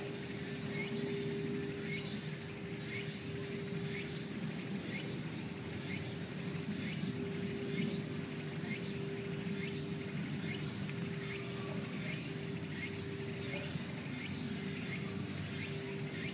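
Outdoor background: a steady low hum and rumble, with a short high chirp repeating about twice a second.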